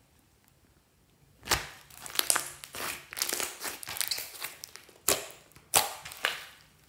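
Glossy slime squeezed and pressed between hands: sticky crackling squelches broken by several sharp pops. It starts after about a second and a half of quiet and dies away near the end.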